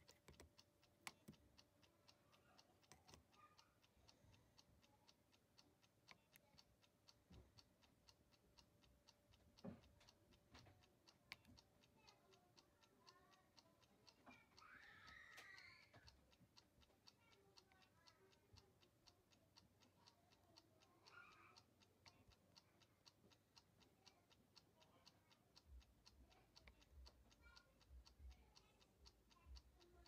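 Near silence: room tone with a faint, fast, regular ticking.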